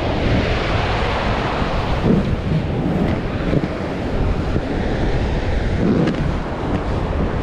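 Ocean surf and wind buffeting the microphone: a steady, loud rumbling wash with a few louder swells.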